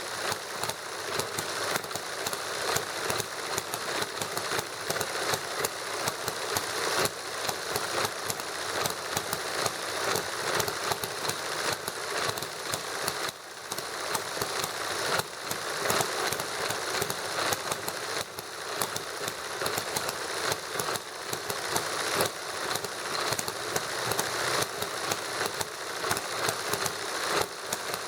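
Two model engines running together, a small hit-and-miss gasoline engine and a Stirling engine, making a fast, steady, uneven clatter of rapid clicks.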